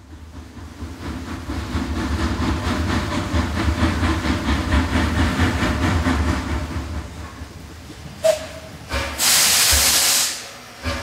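Steam locomotive chuffing with an even pulse, building up and then fading away, followed about nine seconds in by a loud hiss of steam lasting about a second.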